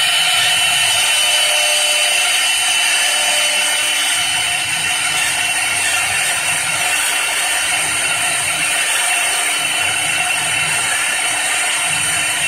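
CNC wood lathe's router spindle running at high speed and carving into a turning wooden baluster: a steady high whine over a hiss of cutting, with a low hum that swells and fades every couple of seconds.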